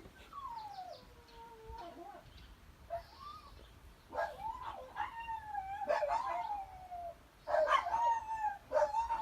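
A cat meowing in a string of long, drawn-out calls that slide downward in pitch, growing louder in the second half.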